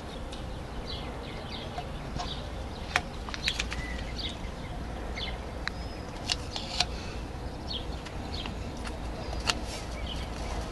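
Painter's tape being pulled off the roll and pressed along a window frame: short rasps and scattered sharp clicks and taps, over a low steady hum.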